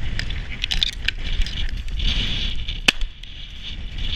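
Wind buffeting the microphone, with a crackling rustle and a couple of sharp clicks.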